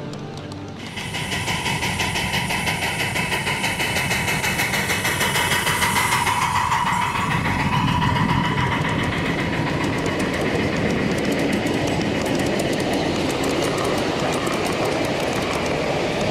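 Ride-on miniature train cars rolling past on the track, their wheels clicking rapidly and evenly over the rail joints. A steady high tone runs under the clicking and is strongest about six to seven seconds in.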